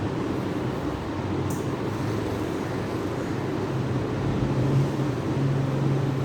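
Steady background rumble and hiss with a low hum that grows stronger about four seconds in.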